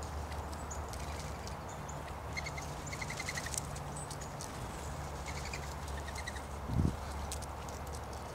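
Small songbirds calling: several quick runs of four or five short notes, and scattered high, thin notes. Under them is a steady low hum, and about seven seconds in there is one dull thump.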